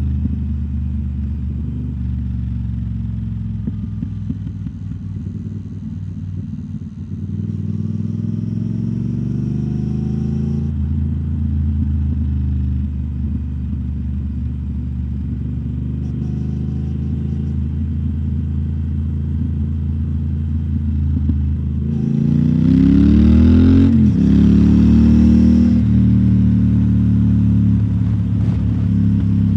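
2021 Triumph Speed Twin 1200's parallel-twin engine, fitted with British Customs Turnout exhaust tips, running steadily at low revs while riding. The engine note rises as it accelerates about a third of the way in. It rises again, louder and with a rush of noise, about three-quarters of the way through, then settles back.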